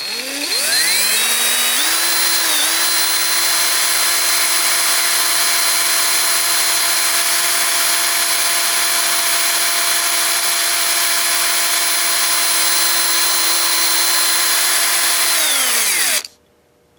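Craftsman 19.2-volt cordless drill motor run at full speed. It spins up with a rising whine over the first couple of seconds, holds a steady high whine, then winds down and stops near the end. The motor's brushes are throwing heavy sparks, which the owner asks about as possibly not normal.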